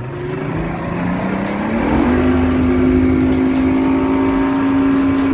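Mercury 200 EFI outboard, a two-stroke V6, throttling up: its pitch climbs for about two seconds as the boat gets under way, then holds steady at cruising speed.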